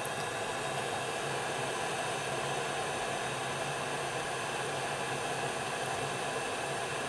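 Steady, even whirring hiss of a fan running on an electronics repair bench, with a faint low hum under it.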